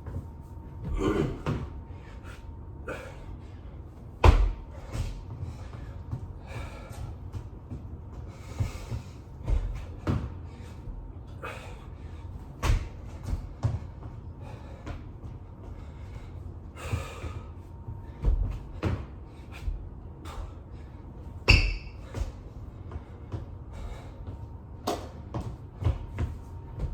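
Thuds of a person doing burpees and push-ups on the floor: irregular knocks every second or two, a few louder landings, with hard breathing in between.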